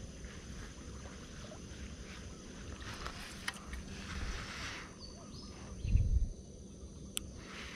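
Outdoor ambience with a steady low rumble and a few faint clicks, and one dull low thump about six seconds in.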